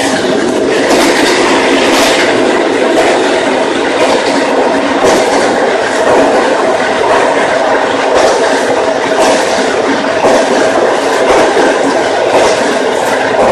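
Tokyo Metro 07 series electric train running at speed: a steady, loud rumble of wheels on rail and motor noise, with occasional clacks over rail joints.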